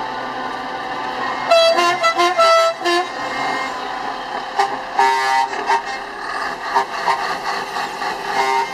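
Truck air horns sounding: a quick run of about five toots about a second and a half in, a longer blast about five seconds in, then a few short toots. Under them runs the steady drone of a running truck, heard from inside the cab.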